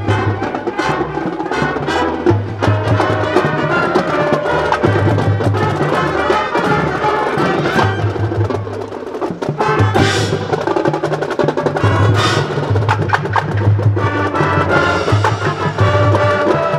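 High school marching band playing live: saxophones, clarinets and brass over a drumline and front-ensemble marimbas, with many sharp mallet and drum strokes over a repeating low bass line.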